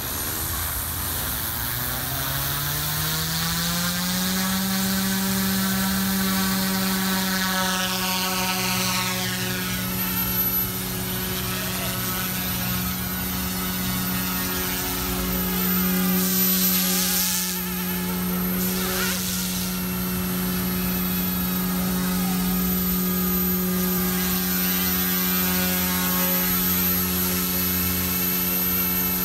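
OMPHOBBY M2 electric RC helicopter spooling up: the whine of its motor and main rotor rises in pitch over the first four seconds or so, then holds a steady hum as it lifts off and flies. About halfway through come a couple of brief louder whooshes.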